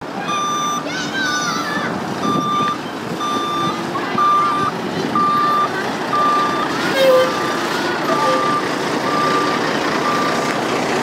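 Work truck's backup alarm beeping steadily, about one beep a second, as the truck reverses, over its engine running.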